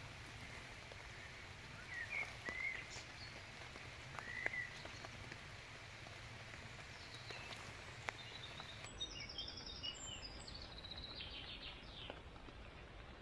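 Wild birds calling over a steady outdoor background hiss: a few short chirps early on, then a run of quick, high repeated notes about nine seconds in.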